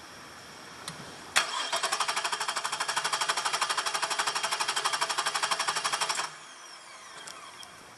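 2002 Nissan Quest's 3.3 L V6 being cranked on the starter for about five seconds, with quick, even compression pulses of about nine a second. The cranking stops suddenly and the engine does not run. It is cranked with the distributor cap off, to show spark arcing to ground from a cracked coil tower, the cause of the cylinder 4 misfire.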